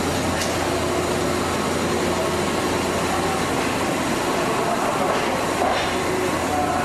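JR East E259 series Narita Express electric train starting off slowly and pulling away, a steady running noise with the wheels on the rails: the low-speed test start that confirms the uncoupling is complete. The sound carries the echo of an underground station.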